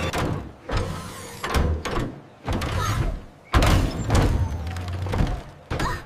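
Cartoon sound effects: a series of about six heavy thuds and clunks, each starting suddenly and dying away quickly, with a low hum under the middle ones.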